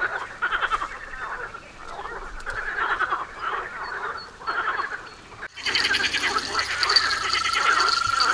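Frogs croaking in chorus, the calls coming in bursts about once a second. About two-thirds of the way through the sound cuts abruptly to a denser chorus, and a steady high tone joins near the end.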